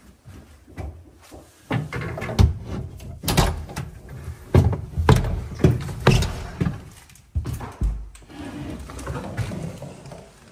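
Footsteps and irregular knocking thuds in a bare, small room, thickest between about two and eight seconds in, then softer shuffling.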